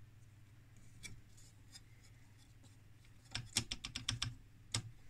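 Light clicks and taps from hands handling the metal chassis and circuit boards of an opened patient monitor: a few small clicks about a second in, then a quick cluster of sharper taps about three and a half seconds in, over a faint steady low hum.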